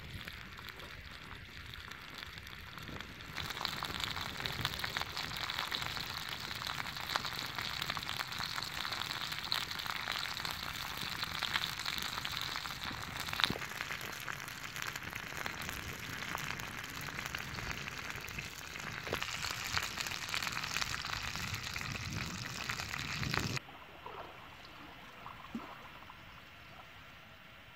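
Chicken wings sizzling on a flat rock heated by a wood fire, with the fire crackling: a steady hiss full of small pops and clicks. It stops abruptly a few seconds before the end, leaving a quieter outdoor background.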